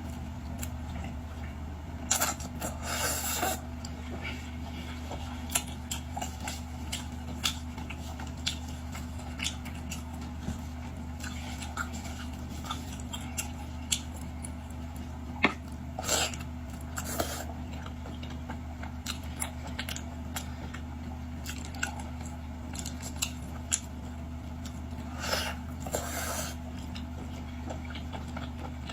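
A person chewing seafood close to the microphone, with scattered small wet clicks and a few short crunchy bursts, over a steady low hum.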